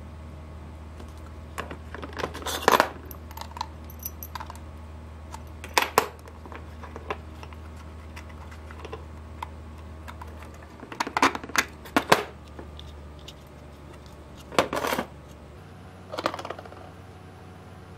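Small hard 3D-printed plastic parts handled and fitted together on a wooden table: scattered clicks and knocks in small clusters a few seconds apart.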